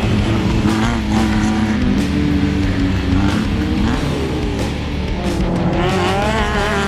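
Off-road race vehicle engines revving and passing, the pitch climbing sharply about six seconds in, over background music.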